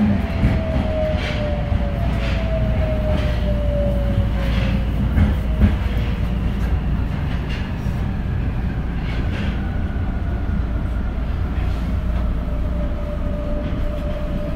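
Tokyo Metro 02-series subway train running. A steady rumble and a whine that falls in pitch over the first few seconds, with regular clacks about once a second.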